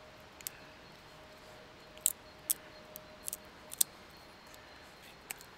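Swiss Army knife blade cutting into a thin wooden stick, a handful of short, crisp cuts, the loudest bunched together between about two and four seconds in.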